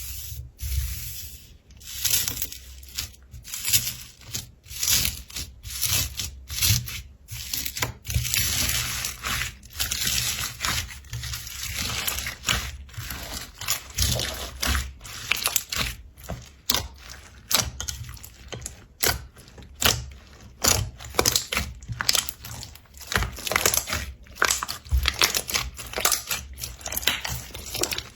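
Slime being squished and pressed, giving dense, irregular crackling and popping.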